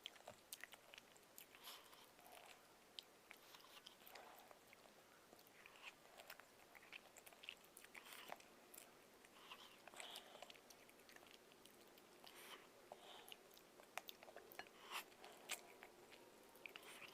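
Quiet, close-up chewing and lip-smacking of someone eating spicy chicken feet, with irregular short wet clicks and smacks throughout.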